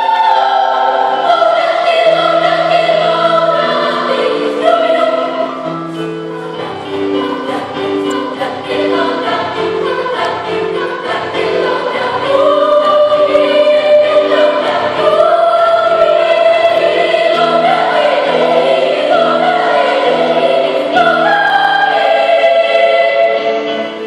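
Children's choir singing a praise song over steady instrumental accompaniment, with a low bass line joining about six seconds in. The singing eases off slightly for a few seconds, then swells louder again from about twelve seconds in.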